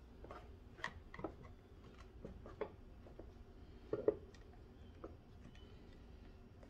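Faint, scattered small clicks and taps from a hot glue gun being worked against a wire napkin holder on a rolled plastic chopping mat; the loudest pair comes about four seconds in.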